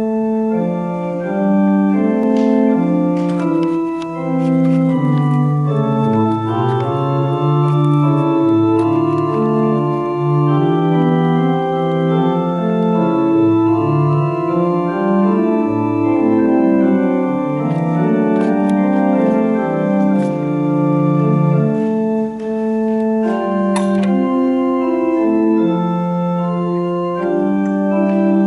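Organ music: slow chords of held notes that keep their full volume while they sound, changing about once a second.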